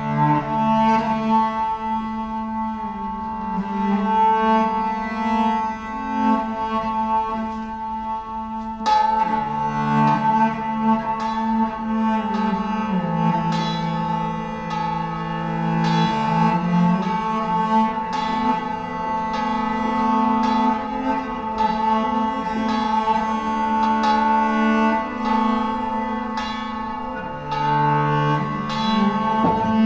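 Live folk string band playing a slow tune: bowed strings holding long notes over a moving bowed bass line. The music starts right at the beginning and grows fuller about nine seconds in.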